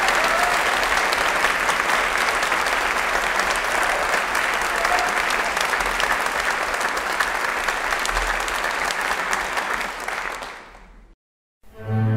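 Theatre audience applauding, a dense steady clapping that fades away about ten and a half seconds in. After a moment of silence, slow music with low bowed-string notes begins.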